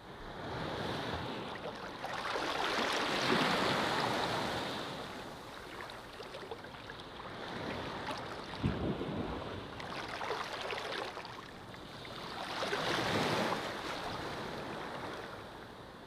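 Ocean surf breaking and washing up on the shore, the hiss of the water rising and falling in slow surges every few seconds.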